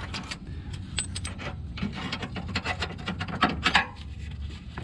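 Irregular clinks, knocks and rattles of metal hand tools and car parts being handled.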